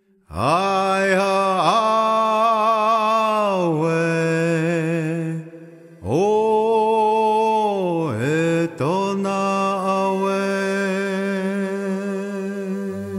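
Wordless chanting over a steady low drone, in a new-age music style. The voice swoops up into long held notes and dips between phrases, breaking off briefly near the middle. There is no drumbeat.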